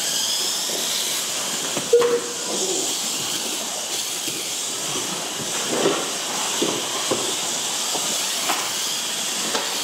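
Several small electric Mini-Z class RC cars racing together: a steady high hiss of tiny motors and gears, with faint whines sliding up and down in pitch as the cars accelerate and brake. A sharp knock comes about two seconds in, with a few lighter knocks later.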